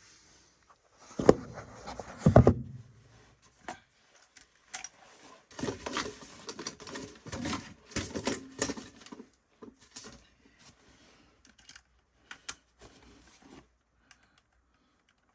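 Irregular clicks, knocks and scraping of hands and tools working on a furnace's blower motor assembly while screws are being fitted. Two louder knocks come in the first few seconds, then a busy stretch of small clicks and rattles that tails off toward the end.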